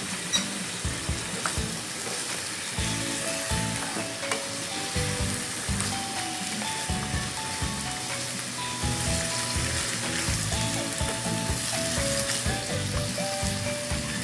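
Pork pieces sizzling as they fry in a nonstick wok, stirred with a silicone spatula that knocks and scrapes against the pan. A simple background melody comes in about three seconds in.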